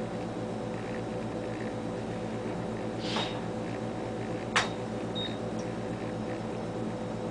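Ultrasound scanner humming steadily, with two clicks from its console controls about a second and a half apart, the second sharper, and two short high beeps, as calipers are placed to measure the fetal head.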